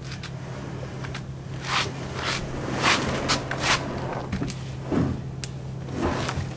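Plastic hull of an Old Town Sportsman PDL 106 fishing kayak scraping and knocking as it is slid out of a pickup truck bed onto a wheeled kayak cart: a string of short, irregular scrapes and thumps over a steady low hum.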